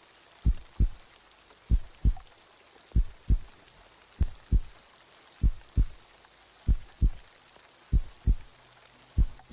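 Heartbeat, a slow lub-dub of paired low thumps about once every second and a quarter, eight beats in all. A low steady tone comes in near the end.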